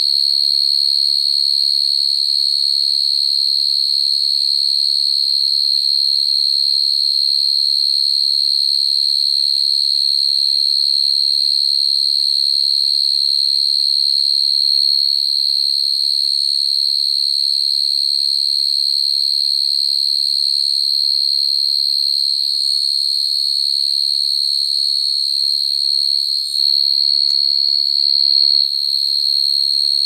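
Male field crickets calling: a loud, unbroken high-pitched trill. This is the calling song that males use to attract females, and it is played here to lure crickets into traps. About three-quarters of the way through it dips briefly and shifts slightly in pitch for a couple of seconds.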